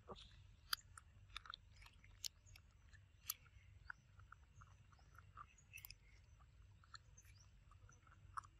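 Young macaque chewing and smacking on a ripe mango. It sounds as faint, irregular wet clicks, with the loudest few in the first three or four seconds.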